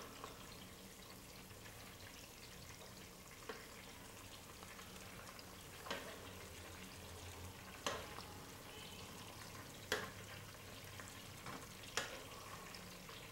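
Chicken pieces shallow-frying in hot oil with a faint steady sizzle, while metal tongs click sharply about every two seconds as the fried pieces are lifted out.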